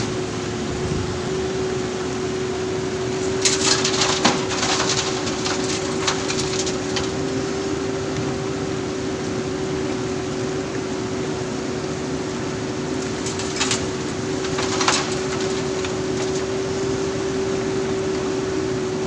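JCB backhoe loader running steadily with a constant engine hum, broken by bursts of clattering and rattling a few seconds in and twice more about two-thirds of the way through.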